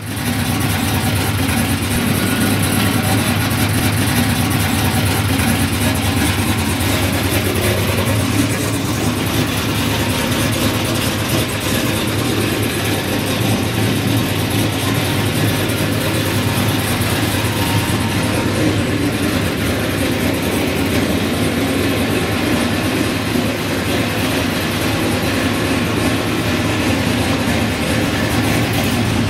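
Car engine idling steadily, a loud, even running sound with no revs.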